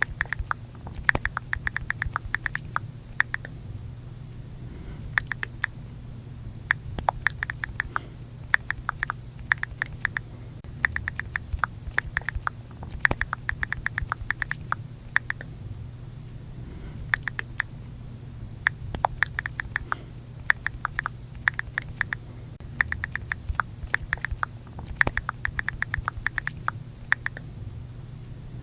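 iPhone on-screen keyboard click sounds as someone types: quick runs of sharp ticks lasting a second or two, broken by short pauses, with a faint steady hum underneath.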